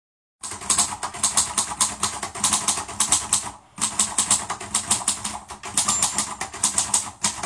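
Rapid, irregular clicking, several clicks a second, with a short break about three and a half seconds in.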